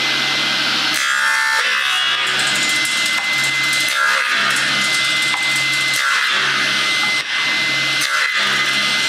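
Panel saw with a 7.5 kW three-phase motor running with a steady whine, its blade cutting small blocks off a length of wood several times in a row. The rip fence is set forward of the blade, so the cut-off blocks are not trapped and nothing kicks back.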